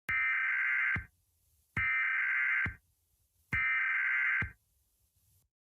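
Emergency Alert System SAME header: three bursts of warbling digital data tones, each about a second long, separated by short silences, marking the start of an alert.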